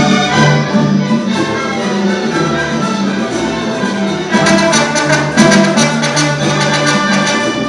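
Youth symphony orchestra playing live, with violins, cellos and double basses. About four and a half seconds in the music turns louder and more accented.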